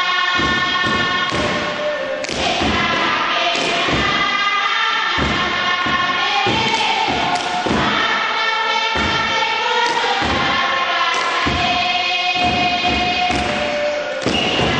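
Kiribati dance song: a seated group chants in harmony to heavy hand-beaten thumps on a wooden box drum, about two a second.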